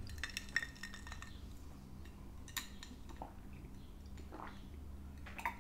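Faint sounds of a person eating and drinking: soft mouth noises and a few scattered light clicks.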